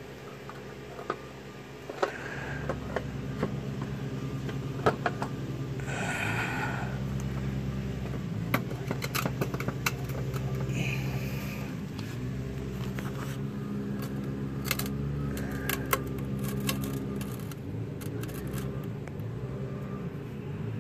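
Scattered clicks, knocks and a brief scrape of a go-kart gas tank being handled and fitted onto a Tecumseh engine, over a steady low hum that starts about two seconds in.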